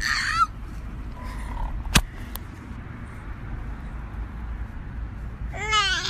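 A domestic cat meows briefly at the start and again near the end, each call rising then falling in pitch. A single sharp click about two seconds in, over a steady low background rumble.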